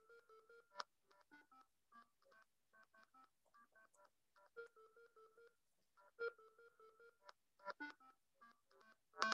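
Micro:bit simulator playing a melody of short electronic beep notes that change pitch from note to note. The notes are faint and swell and fade as the simulator's volume is turned down and back up.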